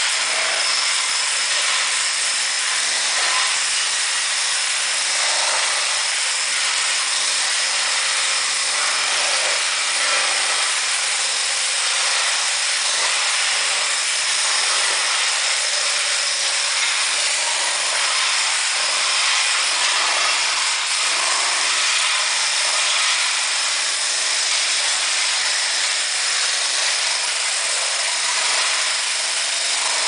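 Electric demolition hammer with a wide tile chisel hammering continuously, breaking ceramic floor tiles off a concrete floor.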